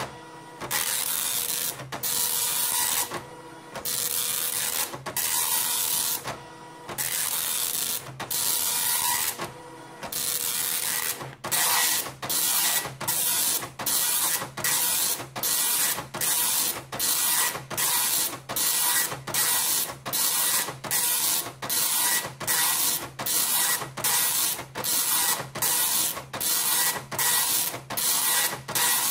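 Panasonic KX-P1180 dot matrix printer printing, its print head rasping across the paper in long passes with short pauses between lines. About eleven seconds in the rhythm changes to short, quick passes about 0.7 s apart, as the demo moves into fast draft printing.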